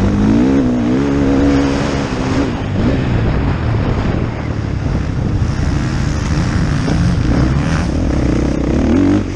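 Motocross bike engine revving hard on a dirt track, its pitch rising and falling with the throttle and gear changes in the first couple of seconds and again near the end, with a rougher stretch of engine noise in between. Heard from a helmet-mounted camera, with air rushing past it.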